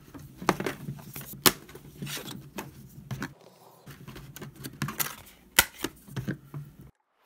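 Thin styrene plastic sheet being cut into strips: a series of irregular sharp clicks and snaps, a few much louder than the rest, over a faint low hum. The sound cuts off suddenly shortly before the end.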